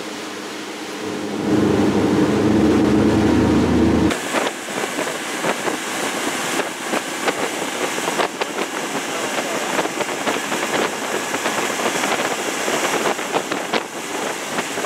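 Motorboat running at speed: a steady engine hum under wind noise, then, after an abrupt change about four seconds in, the rush of churning wake water and wind buffeting the microphone behind twin Yamaha 150 outboards.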